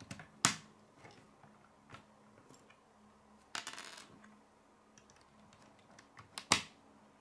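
K'nex plastic rods and connectors clicking and tapping against a wooden tabletop as pieces are handled and fitted: a sharp click about half a second in, a short rattle around three and a half seconds in, another sharp click near the end, and faint ticks between.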